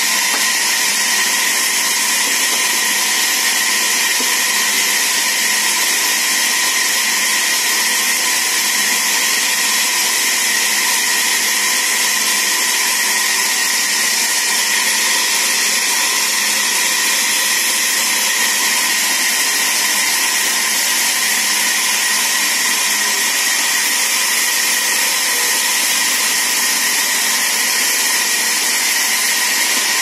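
Sawmill vertical band saw running and cutting mango wood planks: a loud, unchanging high hiss with a constant whine.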